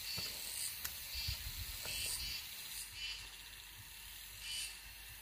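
Insects chirping in short, high-pitched calls repeating every second or so, with soft, irregular thuds and scrapes of a hoe digging into soil.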